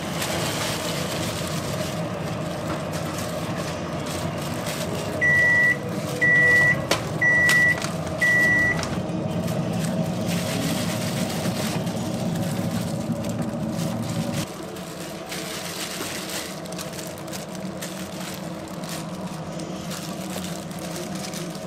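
Four loud electronic beeps on one high pitch, each about half a second long and about a second apart, over a steady low hum.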